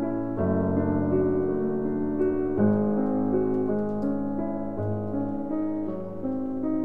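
Background piano music: sustained chords that change every second or two.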